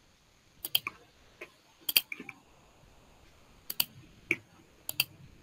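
Computer mouse being clicked several times, mostly in quick double clicks a second or so apart, while a file is found to share on screen.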